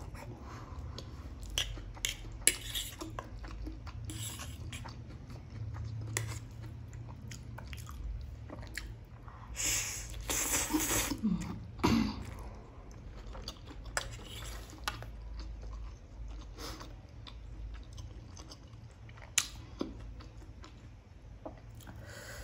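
Close-miked chewing and slurping of instant noodles, with sharp clicks scattered throughout. A long, loud slurp of noodles comes about ten to twelve seconds in.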